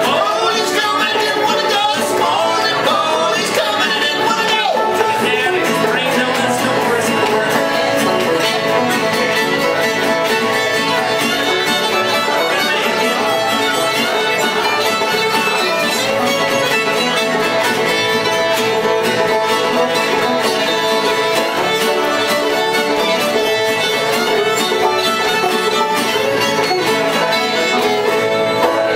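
String band playing an instrumental passage on fiddle, banjo and acoustic guitar, the fiddle carrying the tune over the strummed guitar and picked banjo, with no singing.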